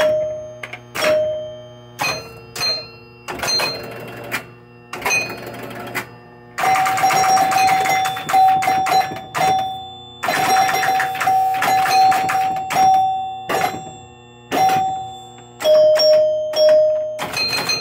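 Chimes of a 1976 Williams Grand Prix electromechanical pinball machine ringing at several different pitches as playfield switches are set off by hand. Single dings come first, then fast runs of chime strikes over rapid clicking from about six to thirteen seconds in, then more single dings. The rebuilt chime box is working again.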